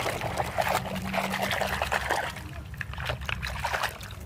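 A hand splashing and swishing muddy water in a bucket while scrubbing a toy saw clean, the splashes thinning out after about two and a half seconds.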